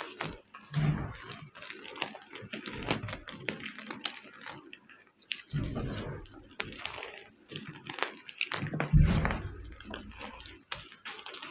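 Homemade gym chalk being crushed and crumbled: dense, irregular crunching and crackling with a few heavier crunches, the loudest about nine seconds in.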